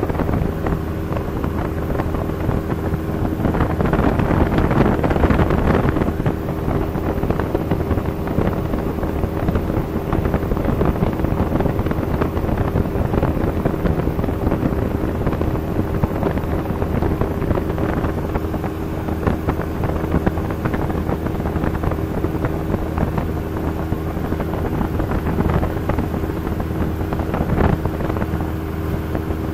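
Cessna 172's piston engine and propeller droning steadily in flight, heard inside the cabin with wind noise over the airframe. The noise swells for a couple of seconds about four seconds in.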